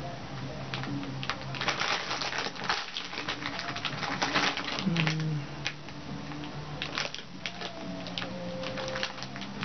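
Hi-Chew candy packaging crinkling and rustling in irregular bursts of crackles as it is opened and a chew is unwrapped. Soft background music plays underneath.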